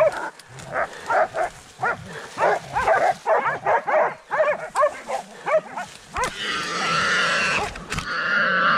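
Hunting dogs barking fast and excitedly, about three barks a second, as they bay a wild boar. From about six seconds in, a long, harsh, drawn-out squeal takes over.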